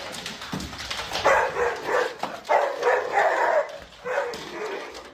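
A dog barking in a run of about five short, pitched calls.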